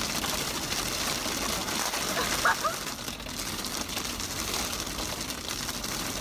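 Steady road and engine noise inside a moving car's cabin, with a brief voice-like sound about two and a half seconds in.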